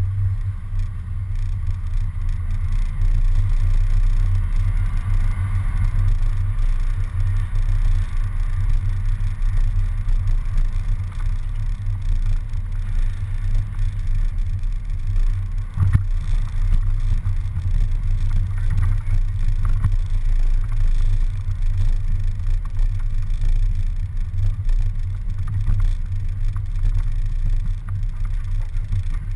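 Low, steady rumble of a city bus driving, its engine and road noise picked up by a GoPro mounted outside on the front of the bus, with one sharp knock about halfway through.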